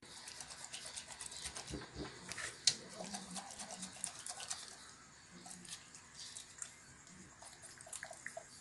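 Water sloshing and splashing inside a 12N5 lead-acid motorcycle battery shaken by hand to rinse out its cells: a quick, irregular pattering with a sharp click about two and a half seconds in.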